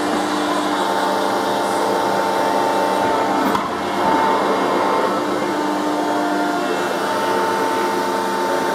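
Industrial cutting press and its progressive feed system running: a steady machine hum with held whining tones that break off and come back, and a brief drop in level about three and a half seconds in.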